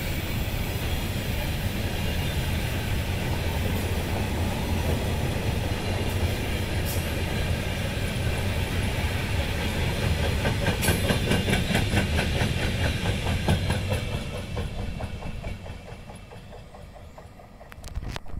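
Covered car-carrier freight wagons rolling past close by: a steady rumble of steel wheels on the rails with a rhythmic clickety-clack. It grows a little louder past the middle, then fades over the last few seconds as the end of the train moves away.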